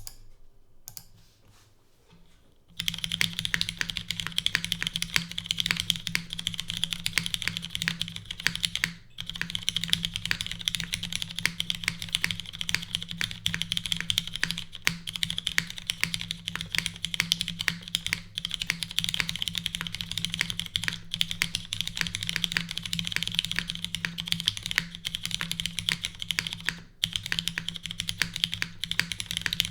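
Continuous fast typing on a Typemachina x TGR Jane 1.5 custom mechanical keyboard with lubed and filmed Cherry MX Black linear switches, a full aluminium plate, no foam and GMK keycaps: a dense run of keystroke clacks. The typing starts about three seconds in after a near-silent opening and breaks off briefly around nine and twenty-seven seconds in.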